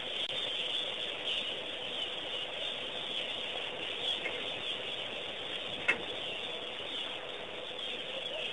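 Steady outdoor ambience: a high hiss of birds and insects, a faint steady hum, and one sharp click about six seconds in.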